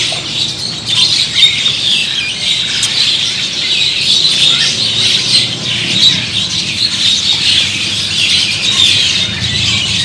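A crowd of small caged songbirds chirping and twittering all at once in a dense, unbroken, high-pitched chatter.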